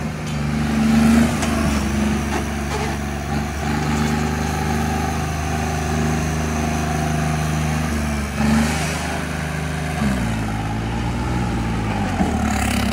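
Stunt tractor's diesel engine running hard at high revs as the tractor spins and wheelies, with the revs dropping about ten seconds in.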